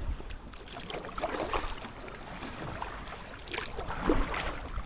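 Kayak paddle blades dipping and swishing through the water, a few soft strokes with light splashes.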